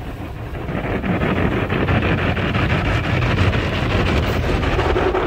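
Spinning car wash top brush slapping and scrubbing across a car's windshield and roof, heard from inside the car as a dense, rapid flapping. It grows louder about a second in and cuts off suddenly at the end.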